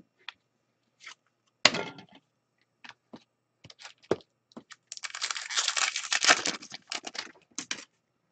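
Trading cards being handled on a table: scattered clicks and taps as cards are picked up and set down, with a sharp snap about one and a half seconds in. About five seconds in comes a dense stretch of card-on-card sliding and rustling that lasts nearly three seconds.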